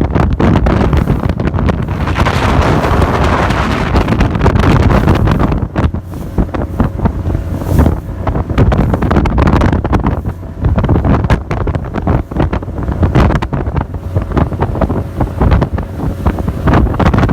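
Strong wind buffeting the microphone aboard a boat at sea, loud and gusty with crackling distortion, heaviest in the first five seconds and then choppier.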